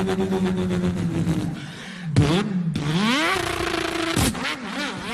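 A man imitating a car engine with his voice. A steady buzzing idle sinks away, then a sharp pop is followed by rising glides like an engine revving up through the gears, and a second sharp pop comes about four seconds in.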